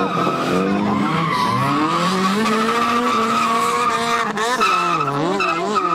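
Drifting cars sliding through a mountain-road corner: engines revving high, their pitch climbing and dipping with the throttle, over a steady tyre squeal. Late on, the engine note wavers up and down in quick throttle blips.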